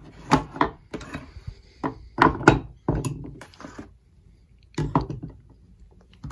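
Knipex diagonal cutters being picked up, handled and set down on a cutting mat: a string of knocks and clicks of metal tools, the loudest between about two and three seconds in.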